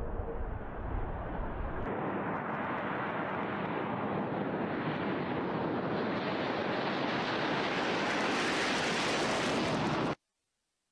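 Jet roar of a B-2 Spirit bomber's four turbofan engines, a steady rush of noise that grows louder and hissier from about two seconds in, then cuts off abruptly near the end.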